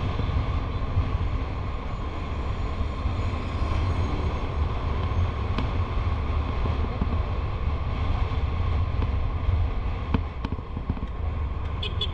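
Wind rushing over the microphone of a riding motorcycle, with the engine and tyres droning steadily at cruising speed.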